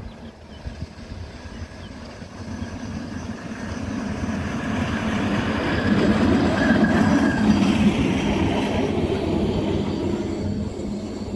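Hi-rail Chevrolet pickup truck passing along the railroad track, its wheels rolling on the steel rails with a faint squeal. The sound builds, is loudest about halfway through as the truck goes by, then fades.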